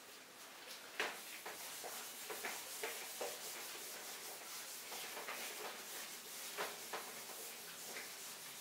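Whiteboard being wiped clean by hand: a faint run of repeated rubbing strokes across the board's surface, starting about a second in.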